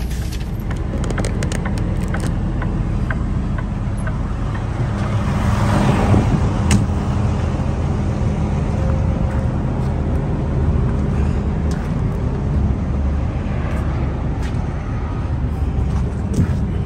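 Steady low hum of an idling diesel truck engine, with scattered clicks and a swell of noise about six seconds in.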